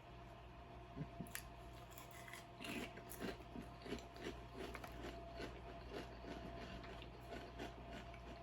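A person chewing crunchy potato chips, the crunches coming faintly at about three a second.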